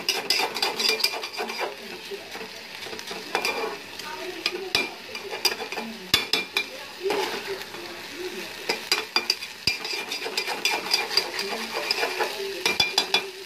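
Soaked polao rice frying in oil in a metal pan with a steady sizzle, while a spatula stirs it with frequent irregular clicks and scrapes against the pan. The rice is being toasted in the oil before water goes in.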